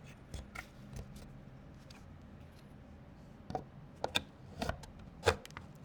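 Scattered clicks and light knocks of computer parts being handled and fitted: a few faint ones in the first second, then a quicker run of sharper ones in the second half.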